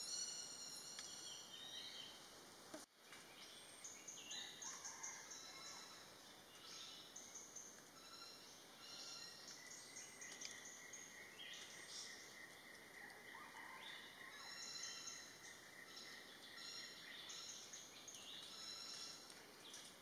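Faint forest ambience with small birds calling in short, high-pitched notes in quick series, and a thin steady note held for several seconds around the middle.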